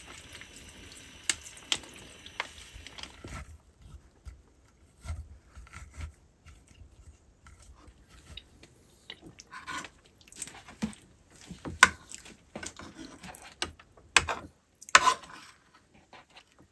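Food sizzling in a frying pan on a gas camping stove, cut off suddenly about three and a half seconds in. Then scattered clicks, knocks and scrapes of metal spoons against a frying pan and bowls as food is dished out, with the loudest knocks near the end.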